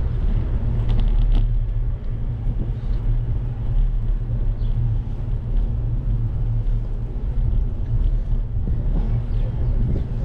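Wind buffeting the microphone and tyre noise from a bicycle rolling along a paved street, heard as a steady low rumble, with a few light clicks about a second in.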